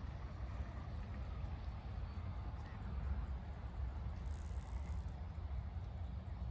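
Low, steady rumble of a distant Boeing 737-700's CFM56 jet engines on its takeoff roll, mixed with wind buffeting the microphone.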